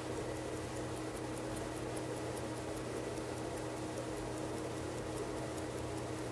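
Patek Philippe Chronometro Gondolo pocket watch movement ticking as its balance and escapement run: a fast, even, light ticking over a steady low hum.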